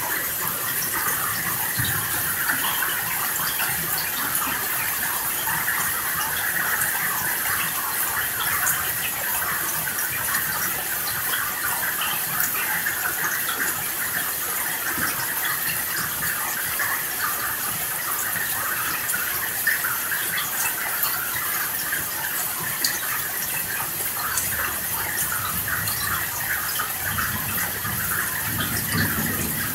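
Steady rain, a dense patter of countless drops, with a low rumble of distant thunder near the end.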